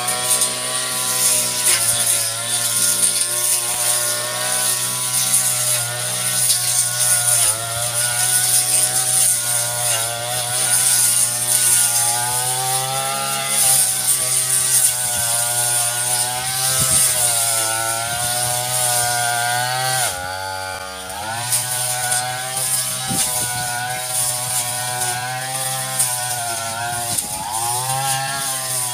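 Brush cutter engine running at working speed while cutting grass and weeds, its note wavering up and down under the changing load. About twenty seconds in the throttle drops briefly, then it speeds back up.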